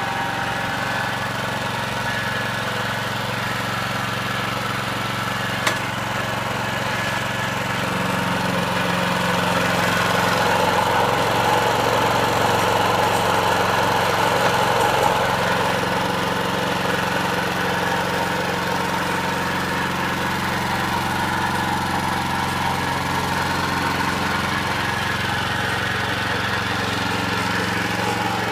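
Honda walk-behind lawnmower's four-stroke engine running steadily, a little louder for several seconds near the middle. A single short click about six seconds in.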